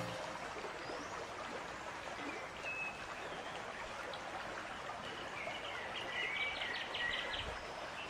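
River water running steadily over rocks, with birds calling over it: a few single chirps, then a quick run of chirps about six to seven seconds in.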